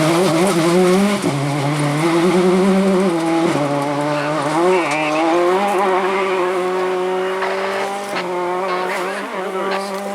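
A rally car's engine running hard at high revs. Its pitch drops at gear changes about one and three and a half seconds in, then climbs slowly as it pulls. It cuts off abruptly at the end.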